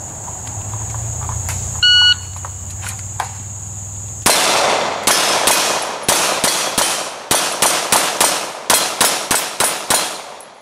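A shot timer beeps once, and about two seconds later a pistol fires a rapid string of some twenty shots over about six seconds at steel targets.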